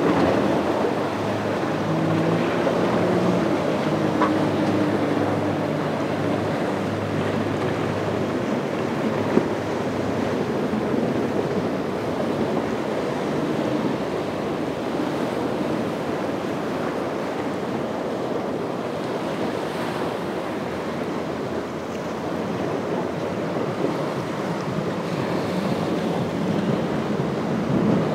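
Waves and surf washing, with wind rushing over the microphone. For the first several seconds the outboard engines of a passing center-console boat run low underneath.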